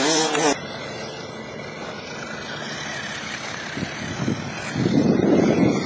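Small electric motor of a 1/18-scale Megatech Megapro RC truck whining in a warble that rises and falls with the throttle, then cutting off suddenly about half a second in; the strained note sounds to the driver's companion like a weed caught in it. After that comes a steady hiss, with loud gusty rushing near the end.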